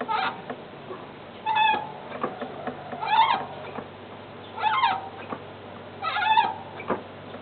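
Clutch squeaking: a short, high, pitched squeal repeated five times, about every one and a half seconds, with faint clicks in between. It is the abnormal clutch noise being recorded.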